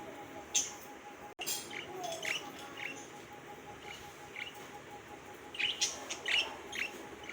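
Pet budgerigars chirping in short, scattered calls, with a quick flurry of chirps near the end.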